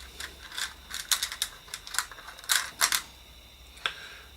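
Small electronic parts clicking and rattling as they are sorted through by hand to find a replacement 100 µF capacitor: a quick run of sharp clicks, thickest in the middle, with one last click near the end.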